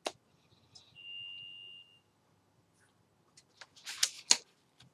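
A sharp click, then one steady high-pitched beep lasting just under a second, then a few sharp clicks near the end, the last two the loudest.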